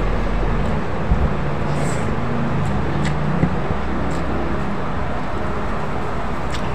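Steady background noise: a low rumble with hiss above it, and a couple of faint clicks.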